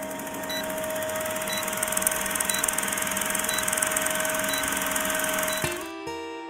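Old film-projector countdown sound effect: a steady projector whir and clatter with a constant hum and a short high beep once a second. It cuts off near the end, where acoustic guitar music begins.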